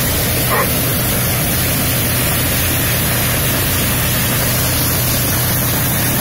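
Maize thresher running steadily: a dense, even machine noise with a low hum, while shelled kernels stream from its outlet into a jute sack.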